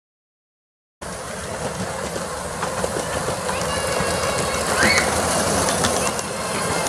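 Miniature steam locomotive on a 7¼-inch gauge line running close past, wheels clicking over the rails. It starts suddenly about a second in and grows louder toward the middle as the engine draws level.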